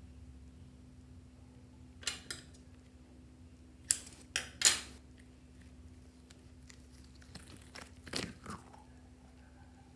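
A rubber balloon packed with modelling clay being squeezed and peeled by hand, the rubber giving short crackling, crinkling sounds: two about two seconds in, three about four seconds in, and a few more around eight seconds.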